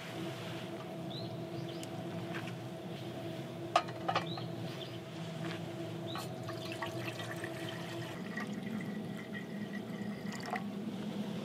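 Liquid sounds from cooking in a pan, with two sharp clicks about four seconds in.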